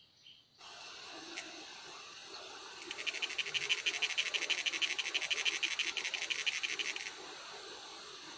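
An animal's rapid, evenly pulsed high trill lasting about four seconds, heard over a steady hiss.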